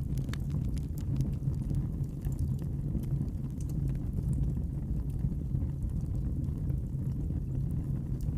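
Wood fire crackling in a fireplace: scattered irregular pops and snaps over a steady low rumble.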